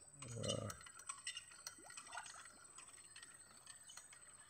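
Faint dripping and sloshing of muddy water as a rope-hauled digging bucket is lifted full of mud out of a flooded ditch, with a brief low sound near the start.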